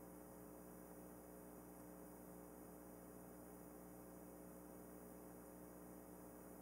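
Near silence: room tone with a low steady hum and hiss.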